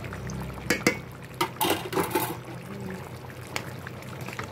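Chicken caldereta bubbling in a stewpot. A couple of sharp clicks just under a second in and a brief louder rush of noise around two seconds in.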